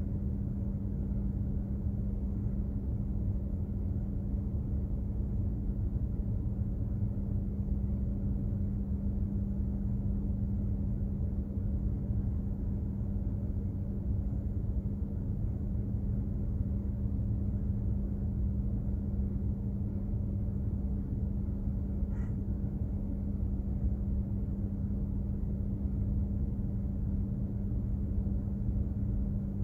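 Steady low drone of a container ship's machinery under way, with a constant hum held over it and one faint short tick about three quarters of the way through.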